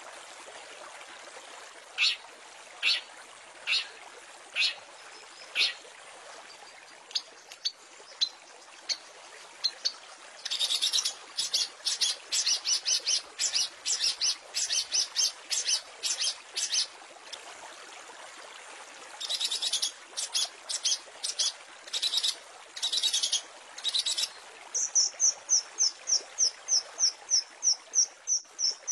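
Long-tailed shrike (cendet) singing its varied, mimicking song: spaced harsh notes, then dense runs of chattering calls, then a quick even series of high chips about four a second in the last few seconds. A steady hiss lies underneath.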